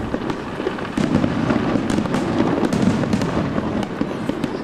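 Fireworks display: aerial shells bursting in a dense run of bangs and crackles over a continuous low rumble. A sharp bang comes about a second in, and the barrage dies down near the end.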